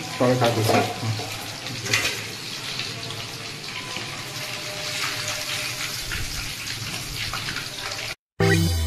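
Chicken pakoras deep-frying in hot oil in a kadai: a steady sizzle. Near the end it cuts off and music with guitar comes in.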